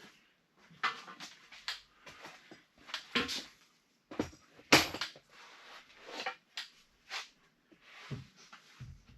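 Irregular knocks and clatter of lumber and tools being handled during wall framing, one sharper knock a little before the middle.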